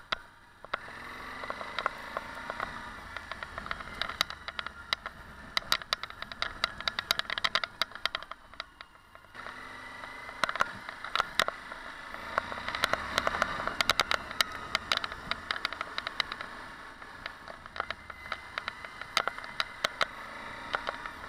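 Suzuki V-Strom 1050XT's 1037 cc V-twin engine running as the bike rides along a rough dirt track, with frequent sharp clicks and rattles from the ride over the uneven surface. The sound gets louder about nine seconds in.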